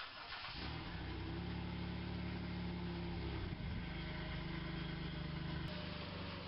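Car engine starting about half a second in and running steadily, with a brief wobble in pitch near the middle before it settles again.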